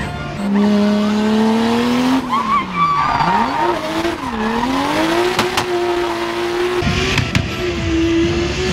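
BMW E36 drift car drifting, its engine revving up and down as the throttle is worked: the revs drop sharply twice, about three and four and a half seconds in, then climb and hold high. The tyres squeal in the middle of the slide.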